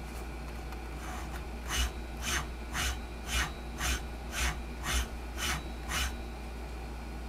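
Clearpath SDHP servo motor spinning a ballscrew at high speed (3600 rpm and up), driving a linear-rail carriage in rapid back-and-forth moves. There are nine short whirring strokes, about two a second, and then it stops.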